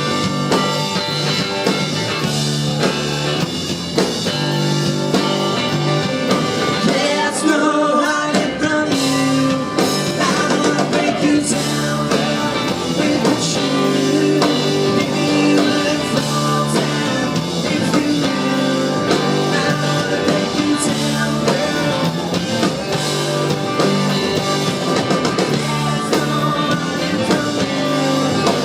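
Rock band playing at steady full volume: electric guitars over a drum kit.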